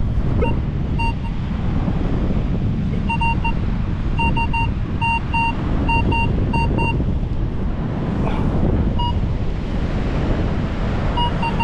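Minelab Vanquish metal detector beeping in short tones of one pitch, in quick pairs and triples, most often from about three to seven seconds in. The beeps signal a shallow buried metal target under the coil. Heavy wind rumble on the microphone runs underneath.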